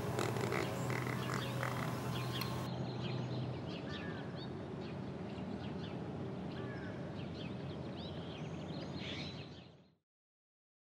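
Birds chirping, short scattered calls over a steady background noise, with a low hum that stops a few seconds in. The sound fades out to silence about a second before the end.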